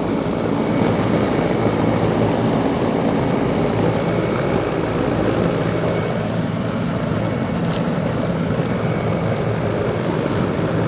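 Outdoor air-conditioning condensing unit running: a steady low hum from the compressor under the even whoosh of the condenser fan.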